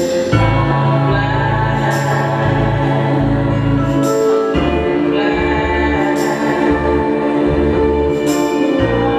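Tango music with long held melody notes over a pulsing bass line.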